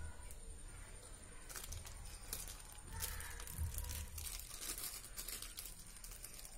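Thin plastic sheet crinkling in the hands as it is folded to press mashed banana around a ball of coconut filling; a run of light crackles starts about a second and a half in.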